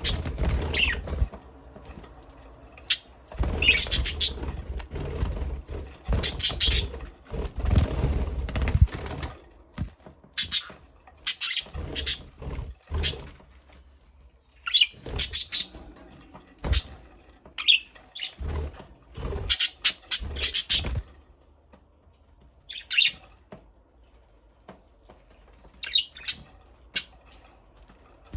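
Budgerigars chirping in short, irregular clusters of high-pitched chirps, busy for the first twenty seconds or so and then thinning to occasional chirps.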